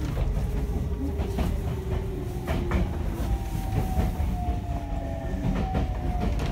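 Interior running sound of a Senboku 7000 series electric train, whose Hitachi 3-level IGBT VVVF inverter motors give a steady tone that slowly falls in pitch as the train slows. A second, higher tone takes over about halfway through, over the rumble of the car and the wheels clacking on the rail.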